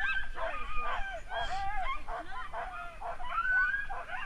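A team of harnessed sled dogs barking and yelping together in an overlapping, continuous clamor. It is the excited noise of a team held at the start line and waiting to be released to run.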